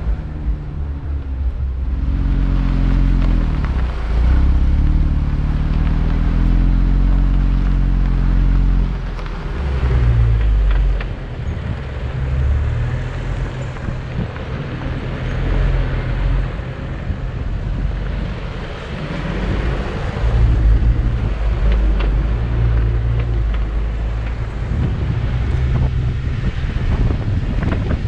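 4x4 SUV engine running as it drives a rough dirt trail, its note shifting up and down with the throttle over the first several seconds. Road rumble follows, with wind buffeting the microphone.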